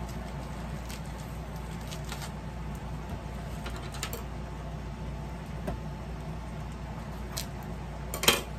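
Cardboard mailing tube being handled and pried open by hand: a few faint scrapes and clicks, then one sharp snap near the end, over a steady low background hum.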